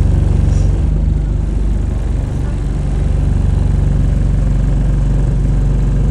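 Diesel engine of an Alexander Dennis Enviro200 single-deck bus idling, heard from inside the passenger cabin as a steady low drone that picks up slightly about three seconds in.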